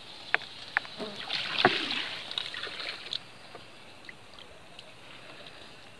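Water splashing, with a few sharp knocks in the first two seconds, the loudest about a second and a half in; after that only a low hiss.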